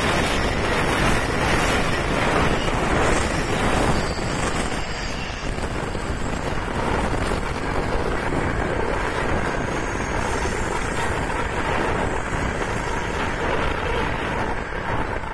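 Shinkansen trains running past at speed on the adjacent tracks, first an E2 series and then an E7 series, a steady rushing roar. It is loudest in the first few seconds and falls away near the end as the train recedes.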